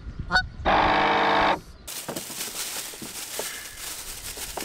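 A loud honk-like pitched call held for about a second, then, after a sudden change, a clear plastic bag crinkling and rustling as it is handled and opened.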